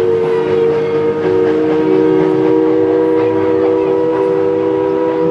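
Steam locomotive's chime whistle blowing one long, steady blast: several notes sounding together as one chord.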